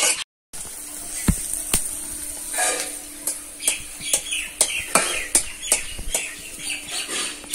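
Sun-dried potato chips sizzling in hot oil in a kadai while a metal spatula scrapes and clinks against the pan as they are stirred. The sound drops out briefly just after the start.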